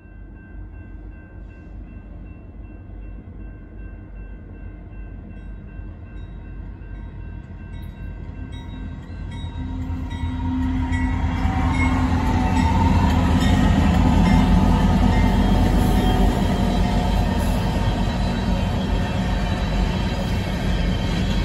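Union Pacific diesel freight locomotives, #6475 leading and #4952 trailing, approach and pass a grade crossing, their engines' low rumble building to its loudest a little past halfway. The freight cars' rolling wheels follow. Steady ringing tones from the crossing's warning bells are heard in the first half, then fade under the train.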